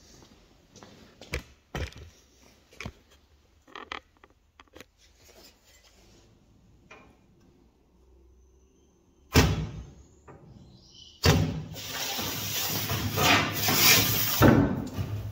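Work on a stainless steel sheet: scattered light clicks and knocks, a sudden loud bang just past halfway, then about four seconds of loud, harsh metallic noise that swells and dips.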